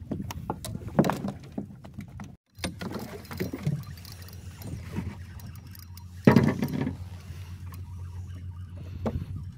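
Sounds aboard a small wooden fishing boat at sea: scattered knocks and handling clatter on the boat over a steady low hum, with a louder thump about six seconds in.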